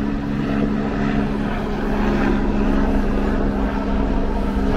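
Diesel engine of a Marcopolo Paradiso New G7 1600 LD double-decker coach running as the bus manoeuvres slowly, a steady low hum that holds one pitch.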